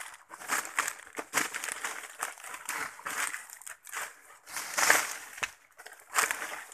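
Footsteps pushing quickly through dry leaf litter and undergrowth, leaves and twigs crunching and brushing past in irregular bursts.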